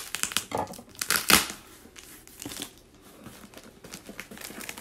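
Packaging crinkling and tearing as a parcel is unwrapped by hand, in irregular rustles that are loudest at the start and again about a second in, then softer handling.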